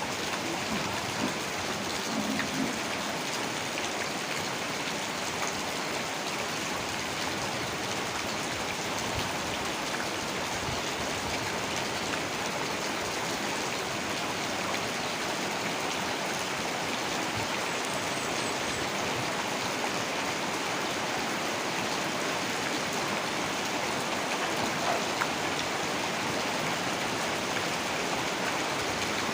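Heavy rain falling steadily, a dense even hiss of rain with scattered individual drops ticking on surfaces.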